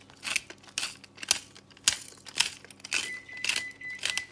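Black pepper grinder being twisted, a gritty crunching stroke about twice a second. About three seconds in, a steady high beep starts and holds: the oven signalling that it has finished preheating.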